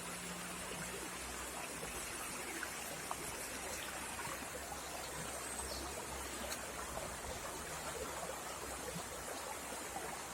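Steady rush of water flowing over rocks, a stream or small waterfall. A faint low hum fades out about a second in.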